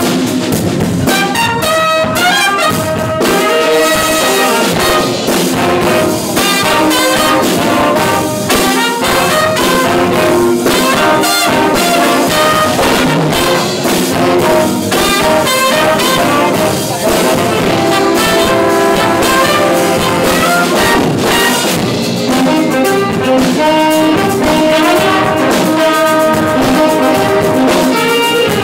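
High school jazz band playing a funky big-band tune live: saxophones and brass in held chords and riffs over a steady beat.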